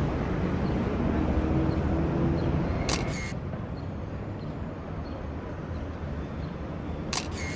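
Camera shutter clicking twice, each a quick double click, about three seconds in and again near the end, over a steady low hum of street noise.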